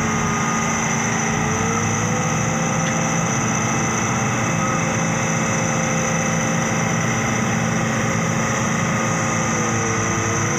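Truck engine running steadily under load, its pitch drifting slowly up and down, as the truck works to climb out of the slippery mud.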